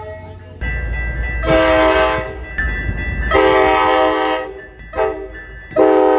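Tri-Rail commuter train's locomotive horn sounding a multi-tone chord in the grade-crossing pattern: two long blasts, a short one, and a final long one, over the rumble of the passing train.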